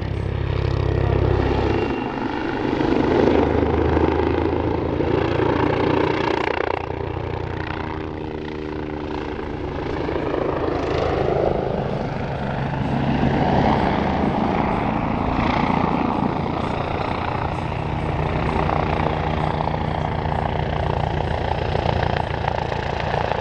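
Messerschmitt-Bölkow-Blohm Bo 105 C twin-turbine helicopter flying aerobatics: its rotor beats steadily over the turbine noise, and the sound swells and fades as the helicopter turns through its manoeuvres.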